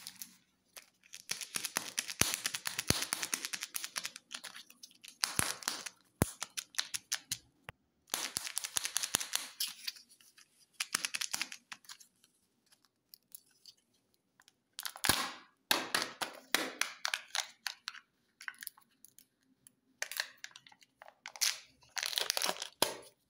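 Plastic Kinder Joy egg shells and foil candy wrappers crinkling, rustling and clicking together as hands rummage through a pile of them, in bursts with short pauses. Near the end, the foil seal is peeled off a Kinder Joy egg half.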